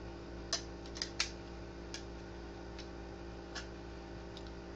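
Light clicks and taps of makeup cases and items being handled, about seven irregular ones, the sharpest three in the first second and a half, over a steady low hum.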